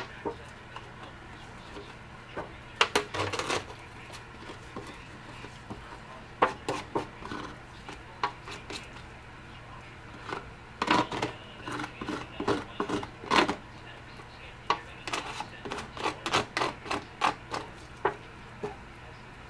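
A mixing stick scraping and tapping against a disposable aluminium pie tin as dyed epoxy bedding compound is stirred, in irregular clusters of clicks and scrapes.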